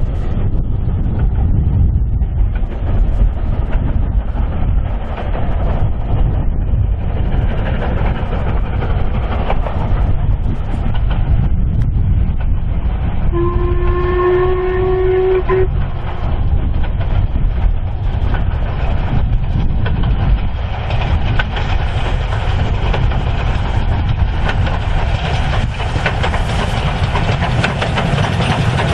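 Steam locomotive hauling a train of carriages, its exhaust and running gear growing louder as it approaches. It blows a chime-like whistle once for about two seconds about halfway through, and wheel clatter on the rails builds near the end as it draws close.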